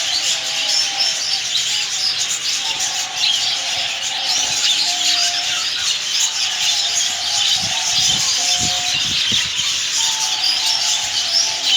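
Many small birds chirping and chattering at once, a dense, unbroken din of overlapping calls with a few longer, lower notes among them.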